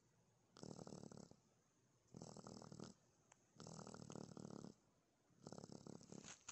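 Baby raccoon purring in its sleep: four faint, pulsing purrs, each under a second long, about a second and a half apart.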